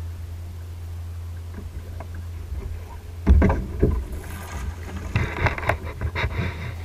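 A sudden loud thump a little over three seconds in as the hook is set, then about two seconds of irregular splashing from a hooked bass thrashing at the surface, all over a steady low hum.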